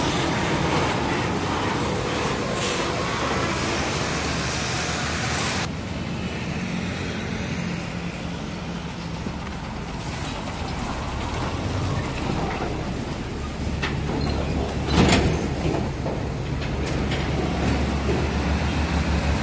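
Heavy diesel trucks in street traffic: a fuel tanker truck's engine and tyres as it pulls away. After a change in the scene, the steady low engine sound of an approaching Isuzu truck grows louder, with one sudden loud sound about fifteen seconds in.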